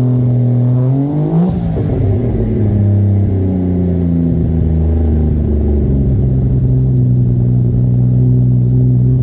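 Toyota Supra Mk4's turbocharged 2JZ inline-six, breathing through an S23 tubular manifold, 4-inch downpipe and Tomei Expreme Ti exhaust, running after a cold start. A short blip of revs rises and falls back about a second and a half in, then the engine settles into a steady idle.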